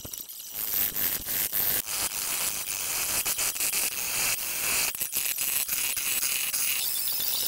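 Wood lathe and bowl gouge roughing a bowl blank, sped up 30 times: a dense high hiss full of rapid clicks and rattles, starting about half a second in.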